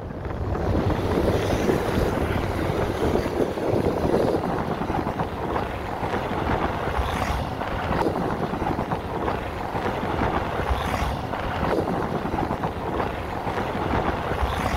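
Steady wind buffeting on the microphone over the running of a motorcycle engine while riding along a road.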